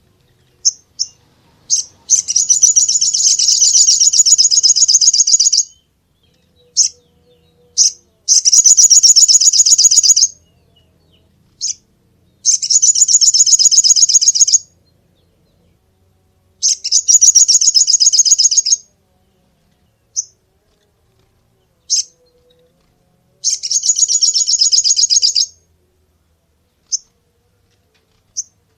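Crimson sunbird singing: five loud, high, fast trills of about two seconds each, with short single chirps in between.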